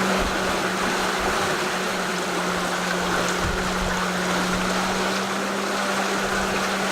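Steady rush of water along a sailing yacht's hull under sail with the engine off, with a constant low hum running underneath.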